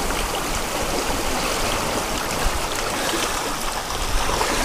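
Shallow seawater surf washing and foaming over the rocks at the shoreline: a steady rush of water with no breaks.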